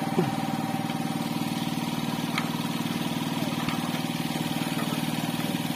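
A small engine aboard a fishing outrigger boat running steadily at idle, with an even, fast pulsing beat.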